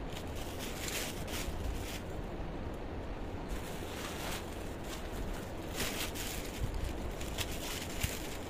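Irregular rustling swishes of cloth being handled, over a steady low rumble.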